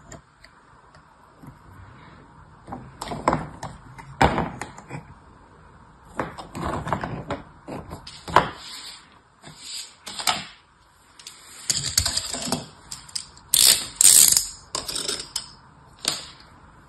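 Brittle dried soap slices coated in metallic paint crackling and clicking as hands press and shuffle them, in irregular bursts, loudest in the last third.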